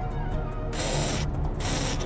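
Background music, with two short bursts of hiss near the middle, the first about half a second long and the second a little shorter.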